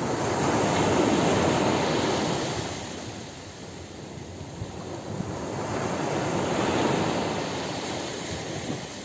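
Ocean surf breaking on a beach: two waves swell and wash in, the first peaking about a second in and the second around seven seconds, with a lull between them.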